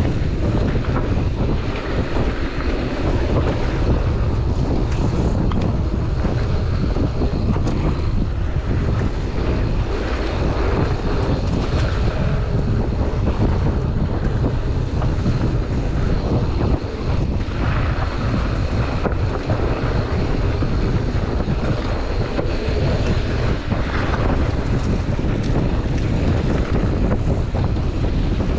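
Wind rushing over the microphone of a mountain bike moving fast down a dirt trail, mixed with its knobby tyres rolling over loose dirt; a steady, unbroken rush.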